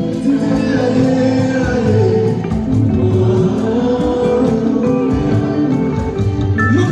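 Music: a singing voice over instruments, with a steady beat.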